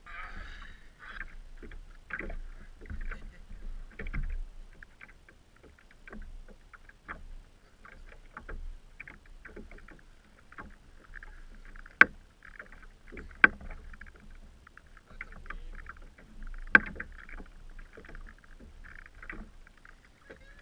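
Water lapping and splashing against a fishing kayak's hull, with small knocks as the catch is handled; three sharp knocks stand out in the second half.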